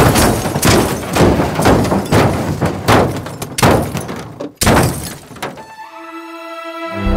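A crash: a string of heavy thuds and breaking impacts, about two a second, then a brief drop to near silence and one last hit. Soft sustained music tones come in near the end.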